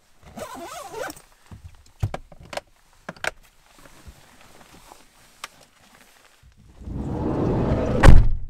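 Gear being packed into a backpack, with rustling and a few sharp clicks, then a camper van's sliding side door rolls along its track and slams shut about eight seconds in.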